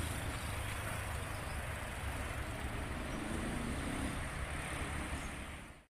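Steady rumble of nearby road traffic, with outdoor noise over it, fading out just before the end.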